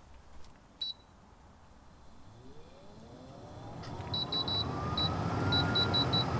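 A 12 V air-conditioning unit's control panel beeps, once early and then in a quick run of short high beeps, as it is switched on. Meanwhile the unit's motor spins up with a whine rising in pitch and a growing whirring hum as it starts running.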